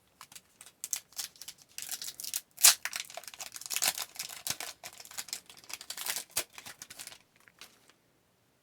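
Plastic wrapper of a trading card pack being torn open and crinkled: a dense run of crackles and rips that stops about a second before the end.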